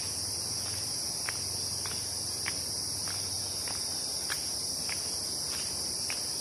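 Steady, high-pitched chorus of insects in tropical forest, with faint short clicks every half second or so.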